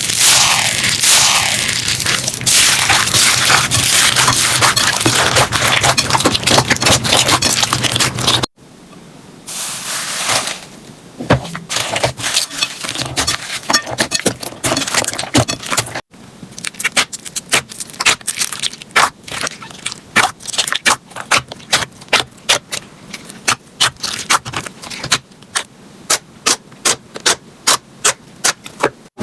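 Slime being squeezed and worked by hand in a few cut-together clips: first a dense crackling, then after a cut scattered clicks, and in the last part sharp pops and clicks coming about twice a second.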